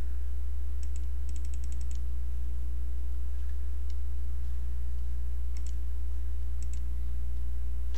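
Computer keyboard and mouse clicks: a quick run of about eight clicks a second in, then two pairs of clicks later on. A steady low electrical hum runs underneath.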